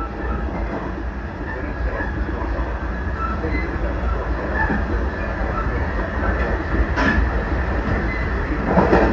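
Running noise of a JR Central 383-series limited express electric train under way: a steady rumble of wheels on rail, with a sharp clack about seven seconds in and a louder knock near the end.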